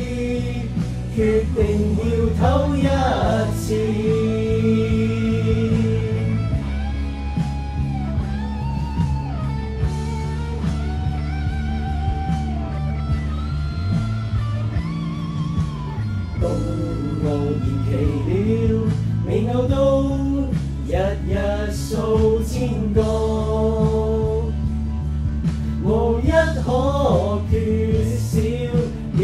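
Cantonese pop-rock song: a group singing the melody over guitar and band accompaniment.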